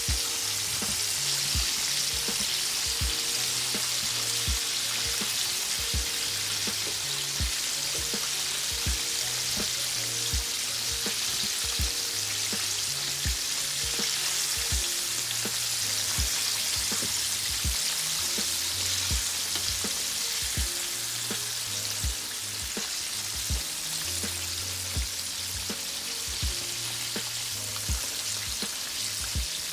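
Chicken frying in hot oil, a steady dense sizzle. Underneath is background music with a bass line and a steady beat.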